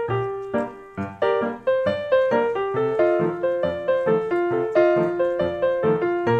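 Background piano music, a melody of single notes struck at an even, unhurried pace.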